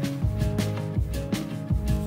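Background music with a steady beat and held low notes.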